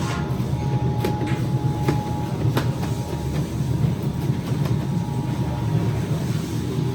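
Steady low mechanical rumble, with a faint steady hum above it and a few short clicks scattered through.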